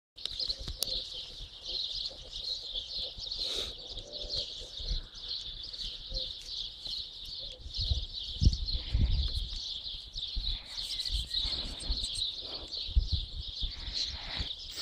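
Steady high-pitched chirping, with low gusts of wind rumbling on the microphone now and then.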